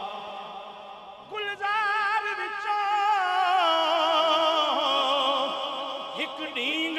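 Male voice singing a naat. A fading held note is followed, about a second and a half in, by a long line of drawn-out, wavering notes with heavy vibrato that slowly sink in pitch.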